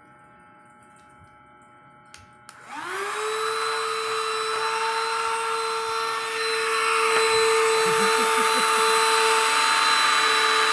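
A vacuum cleaner switched on with a click about two and a half seconds in, its motor spinning up with a rising whine and then running steadily.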